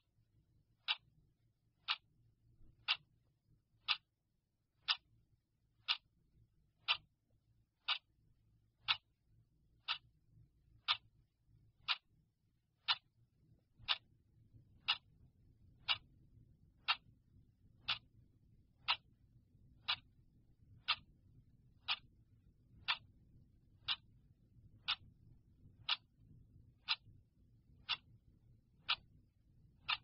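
Clock ticking, one sharp, even tick a second.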